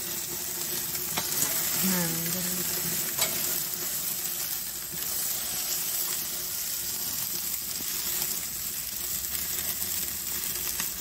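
Marinated chicken wings sizzling on the grill grate over an open fire in a barrel smoker, a steady hiss with a few sharp clicks as the skewered wings are handled.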